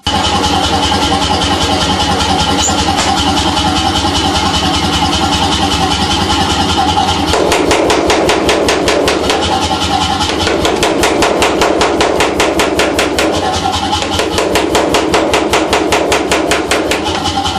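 Anyang 33# pneumatic power hammer running: its motor and compressor run steadily for the first seven seconds or so, then the ram strikes a red-hot steel bar on the lower die in a fast, even string of blows, drawing it out into a taper.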